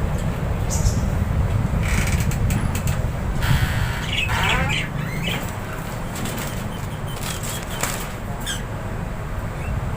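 Small aviary parrots, lovebirds among them, giving scattered squawks and short chirps, with a few flurries of wing flapping, over a steady low rumble.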